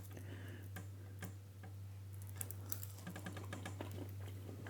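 A scatter of small, irregular clicks and taps from handling food and things on a table, with a quick run of ticks about three seconds in, over a steady low hum.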